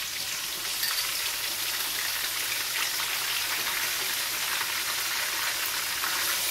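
Crushed onion paste sizzling in hot oil, along with ginger and garlic, in a nonstick wok: a steady hiss that grows louder about a second in as the onion hits the oil.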